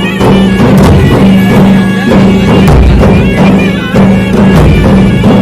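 Dhol drums beaten hard in a loud, regular beat, with a steady held droning tone sounding under the strokes.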